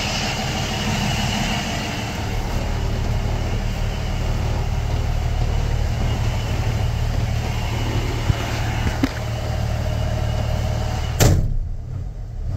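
The 2005 Hino 268's straight-piped 7.6-litre inline-six diesel idling steadily, heard from inside the cab, with a couple of small clicks. Near the end the cab door slams shut and the outside noise drops away, leaving the engine muffled.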